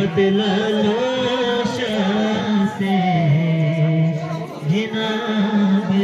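Chanting voices singing a slow, melodic recitation with long held notes that glide in pitch, over a steady low sustained tone.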